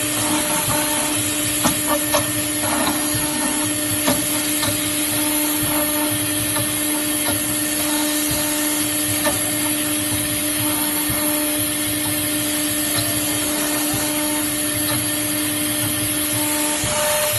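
CNC router running: the spindle gives a steady whine over a constant rushing noise, while the axis motors hum in short repeated spurts as the gantry moves. The spindle whine cuts off near the end.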